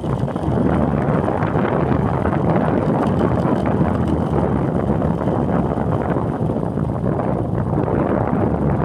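Motorcycle running steadily while riding along a road, with wind buffeting the microphone.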